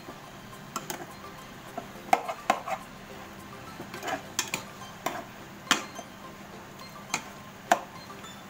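Metal ladle clinking and scraping against a pan as chicken pieces are stirred, in a dozen or so irregular sharp knocks.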